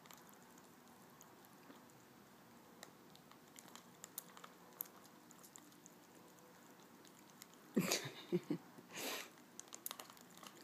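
A cat licking and lapping water from a spray bottle, making faint small wet clicks. About eight seconds in come a few louder short hissing bursts as the bottle is squirted.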